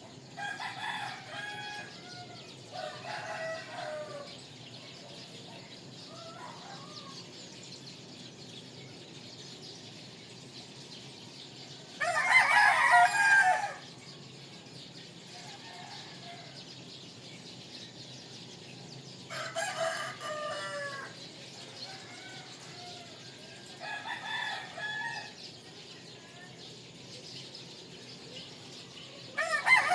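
Rooster crowing repeatedly: about six crows, each a second or two long. The loudest comes about twelve seconds in and another starts near the end, with the others fainter.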